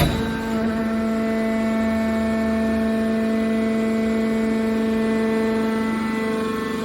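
A machine running steadily, droning at a constant pitch, with a brief knock right at the start.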